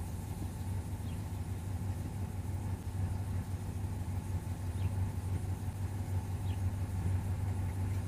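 Car engine idling steadily, heard from inside the cabin with the driver's window open.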